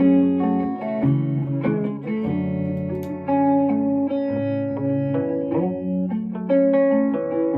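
Electric guitar playing a run of picked notes and chords, each ringing on after it is struck.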